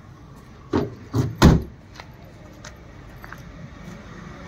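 Tailgate of a Maruti Suzuki Alto 800 hatchback being brought down and slammed shut: two lighter thuds, then one heavy slam about a second and a half in.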